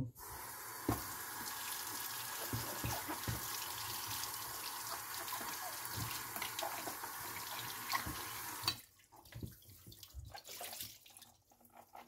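Tap water running into a sink as a vacuum cleaner part is rinsed, with light knocks of the part being handled under the stream. The water stops about three-quarters of the way through, leaving a few soft knocks and drips.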